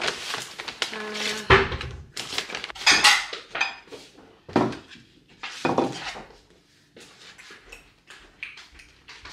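Plates and cutlery clinking and clattering on a table as it is being set: a string of separate knocks and clinks, busier and louder in the first six seconds, fainter and sparser after that.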